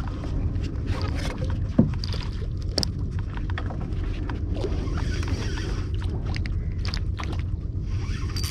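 Steady low rumble of wind buffeting the microphone, with scattered small ticks and knocks and one short thump about two seconds in.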